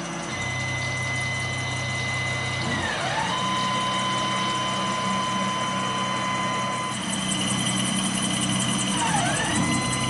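Tormach CNC mill running: a steady high spindle whine over a low motor hum. The whine drops in pitch about three seconds in and rises again near the end as the spindle speed changes, with a fine rapid ticking high up in the second half.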